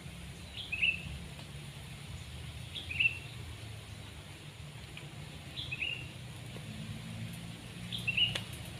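A bird repeats a short, high two-part chirp four times, about every two and a half seconds, over a low steady hum. A sharp click comes near the end.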